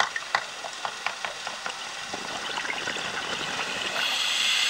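Scuba diver's breathing heard underwater: a scatter of bubble clicks and crackles, then a loud rush of exhaled bubbles from the regulator starting about four seconds in.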